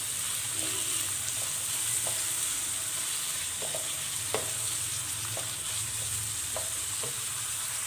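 Carrot and green capsicum strips sizzling as they fry in hot oil in a pan, stirred with a wooden spatula that knocks lightly against the pan about ten times.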